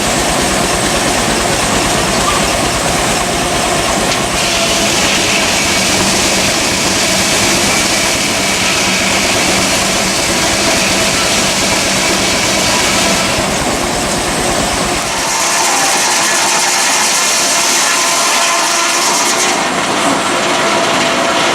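Steam traction engine driving a sawmill, its exhaust chuffing in a fast, steady beat under load. A high, hissing whine of the circular saw cutting through a log runs over it for long stretches, and the low chuffing drops away for the last few seconds.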